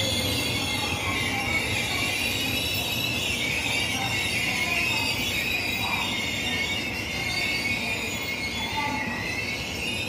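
Steel wheels of an electric subway train squealing on curved track: a high, wavering screech over a low rolling rumble, fading slightly toward the end.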